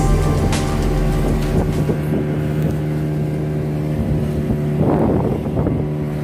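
Small fishing boat's engine running steadily under way, a low even drone. A short rush of noise comes about five seconds in.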